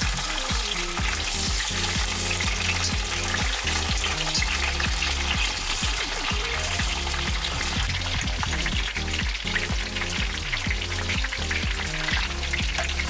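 Pork frying with a steady crackling sizzle in a cauldron, with stirring, over background music.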